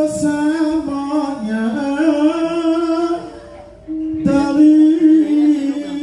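A voice singing long, held notes with small bends in pitch, breaking off briefly a little past halfway before carrying on.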